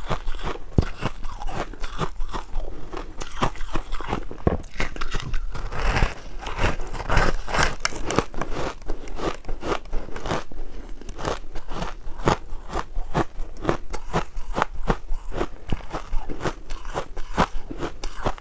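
Crunching of a frozen pink ice cake being bitten and chewed, a dense run of sharp cracks and crackles several times a second.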